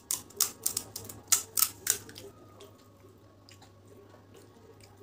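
Crisp puri shells crunching close to the microphone. About six sharp crunches come in the first two seconds, then only faint small ticks.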